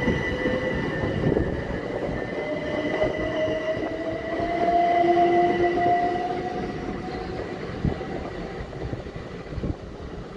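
Southern electric multiple-unit train accelerating out of the platform. Its motors whine in a slowly rising pitch over a steady rumble of wheels on rail, and the sound fades away over the last few seconds as the train draws off.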